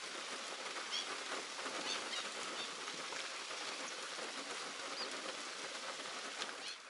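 Steady hiss of light rain over a wetland, with short, high calls of distant waders now and then: marsh sandpiper and black-winged stilt.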